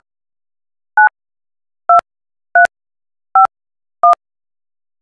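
Touch-tone (DTMF) keypad tones from a softphone dialer: six short beeps, each a pair of pitches that changes from beep to beep, spaced roughly a second apart. They are a group of digits being keyed in to an automated phone line.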